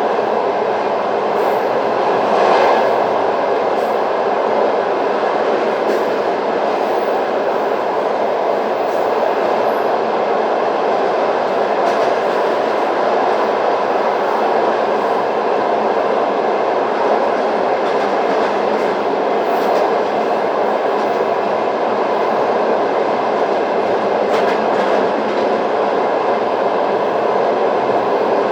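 Passenger train's wheels running on the rails, heard from aboard the carriage: a steady rolling din with a brief louder swell about two seconds in.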